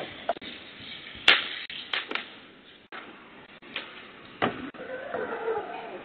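Sharp knocks and pops, about five of them, the loudest about a second in, over a steady hiss, heard through a security camera's thin-sounding microphone while a backyard fire is being hosed down; a short wavering sound comes near the end.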